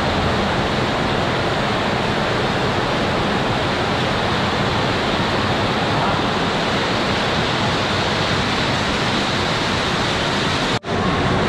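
Torrential rainstorm pouring onto a glass-and-metal canopy roof overhead: a loud, steady, overwhelming rush of rain. It cuts out for an instant near the end.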